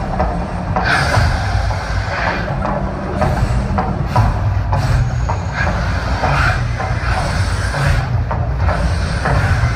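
Mirage volcano show: a loud, deep, continuous rumble with repeated whooshing surges as gas fireballs erupt from the lagoon.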